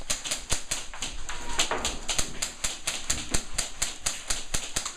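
Airsoft guns firing: a rapid, irregular stream of sharp clicks and snaps, several a second.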